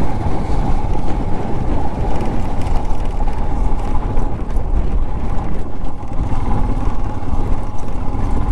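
Royal Enfield Himalayan 411's single-cylinder engine running while the motorcycle is ridden over a broken mountain road, with heavy wind and road noise.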